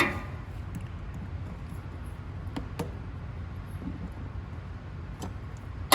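A few light clicks and taps of small parts as the fuel line and primer pump are fitted to a walk-behind mower's carburetor, over a steady low hum.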